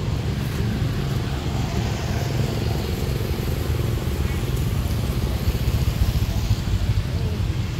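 A steady low rumble with no distinct events.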